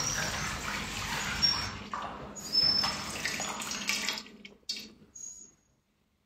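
Liquid pouring and splashing into a container, tapering off about four seconds in, followed by a couple of short faint knocks.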